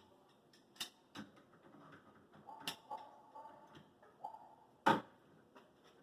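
Sparse light clicks and knocks, the loudest about five seconds in, from a rebuilt electric power steering rack being turned by hand on the bench; the rack turns freely, with no grinding or rattle of its own.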